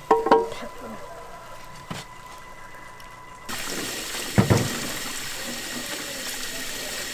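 A couple of sharp knocks with a brief ring, then, from about halfway, a tap running steadily into a basin of water as cucumbers are washed under it, with a dull knock as they are handled in the basin.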